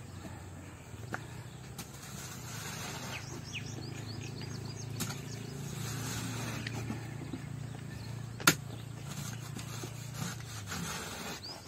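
Long-handled spade scraping and digging into dry soil and stones in a pit, with irregular rubbing and scraping strokes and one sharp knock past the middle. A steady low hum runs underneath.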